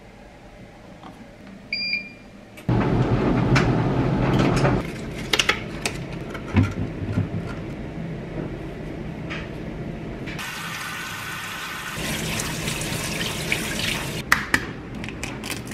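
A clothes dryer gives one short electronic beep as its program dial is turned, about two seconds in. Then a kitchen tap runs water into the sink, loudest for the first couple of seconds, while fruit is rinsed in a colander.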